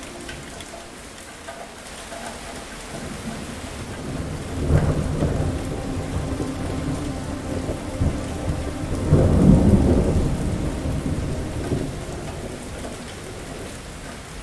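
Steady heavy rain with a long roll of thunder. The thunder starts about four and a half seconds in, swells again to its loudest about two-thirds of the way through, then dies away.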